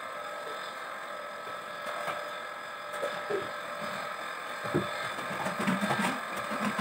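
Household handling noises: a few scattered light knocks, then a quick run of small knocks and clatter near the end as kitchen items are moved about, over a steady faint background hum.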